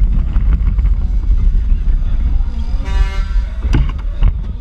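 Onboard a small electric race kart: a steady low rumble of wind on the microphone and the chassis rattling over asphalt at speed. A short horn toot sounds about three seconds in, followed by two sharp knocks.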